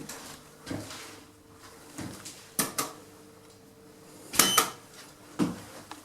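A handful of irregular knocks and clicks, the loudest a sharp double clack about four and a half seconds in.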